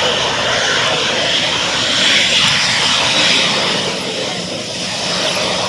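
Boeing 737-800's CFM56-7B jet engines at taxi power: a steady rush of engine noise, swelling a little about two to three seconds in.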